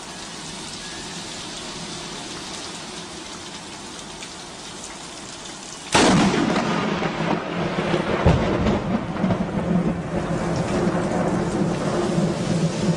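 Heavy rain pouring down in a thunderstorm, a steady hiss. About six seconds in, the sound jumps suddenly louder and deeper, with thunder rumbling under heavier rain.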